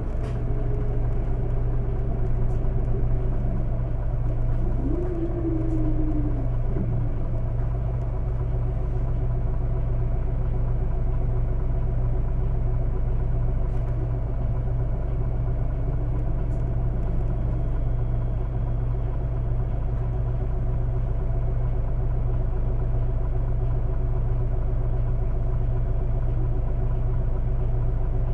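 Isuzu Erga city bus's four-cylinder diesel engine idling steadily, heard from inside the cabin, with a brief whine that rises and falls about five seconds in.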